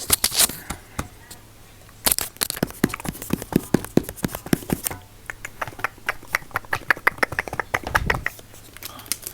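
Close-miked ASMR clicking: quick runs of sharp clicks, several a second, in two runs with a short lull between, and a low thump near the end.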